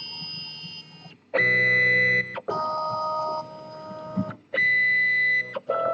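Stepper motors of a Weedo Tina 2 3D printer whining at steady pitches as the print head makes a run of short moves. Each move lasts about a second, starting and stopping abruptly at a different pitch.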